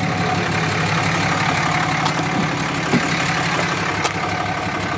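The Cummins 6.7-litre turbo diesel of a 2007 Dodge Ram 2500HD idling steadily through an aftermarket big-pipe exhaust. A couple of light clicks come in the second half.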